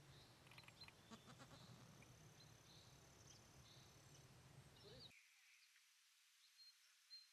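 Near silence: faint outdoor ambience with a low hum and a few faint high chirps. It drops quieter about five seconds in.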